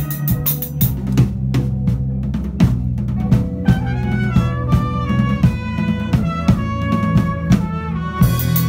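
Big band playing a funk-jazz groove on drum kit and bass. The cymbals drop out about a second in, a stepping melody line comes in about three seconds in, and the cymbals return near the end.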